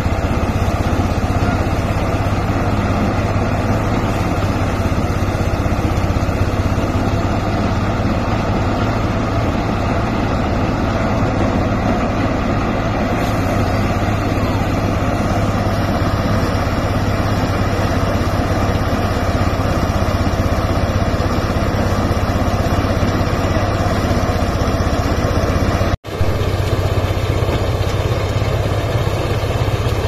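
Engine-driven portable rice thresher running steadily as rice stalks are fed in, with a strong low hum and a momentary break near the end.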